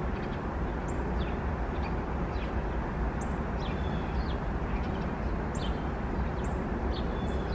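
Outdoor ambience: a steady low rumble with small birds chirping in short, high, quick notes, about two a second.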